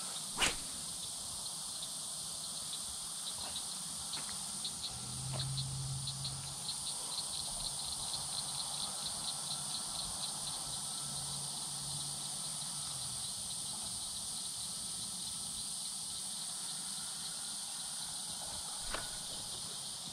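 Insects calling steadily: a constant high-pitched hiss with a rapid, even pulsing chirp over it for about ten seconds in the middle. A single sharp click just after the start, and a faint low hum through the middle.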